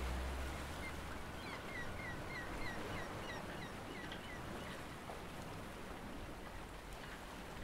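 Sea waves washing in a steady hiss, with a bird calling a quick run of about a dozen short notes, four or five a second, from about a second and a half in until about four seconds in.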